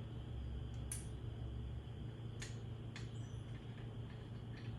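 A few faint, sharp metal clicks as the washer is lifted off the top of a motorcycle front-fork spring and handled, over a low steady background hum.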